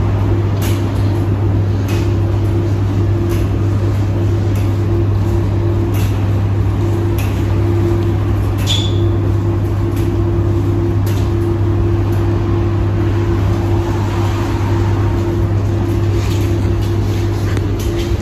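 Commercial tumble dryer running with a load of bed linen tumbling in the drum: a steady hum with a constant mid-pitched tone, and light ticks repeating at an even pace about every second and a quarter.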